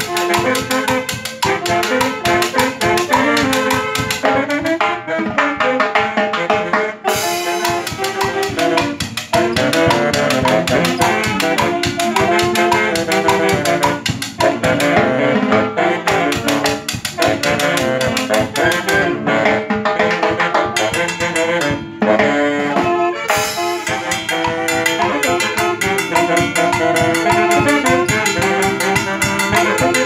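A band of four saxophones and a drum kit (bass drum, snare and cymbals) playing a parrandita: the saxophones carry the tune together over a steady drum beat.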